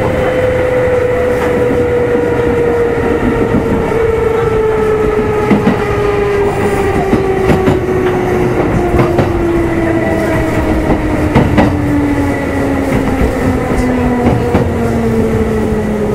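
Kintetsu 2800 series electric train heard from inside motor car Mo 2852: the traction motor whine falls steadily in pitch as the train slows. The wheels clack over rail joints now and then.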